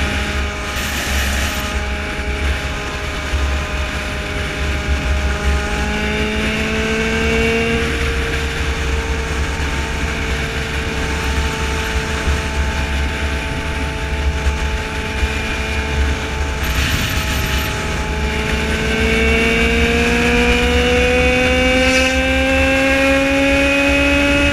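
Yamaha XJ6 motorcycle's inline-four engine running at highway speed under heavy wind noise on the microphone. The engine note holds steady, then rises over the last several seconds as the bike accelerates.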